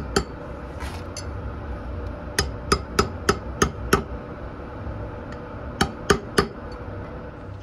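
Hammer tapping a steel drift to drive a tapered roller bearing down onto a motorcycle steering stem: two taps at the start, a run of six at about three a second, then three more near the end. The drift is pressing on the bearing itself, not on a pipe sized to its inner ring.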